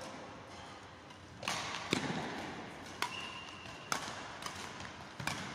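Badminton rackets striking a shuttlecock in a fast doubles rally: five sharp hits about a second apart, starting about a second and a half in, the second the loudest, with a short squeak just after the third.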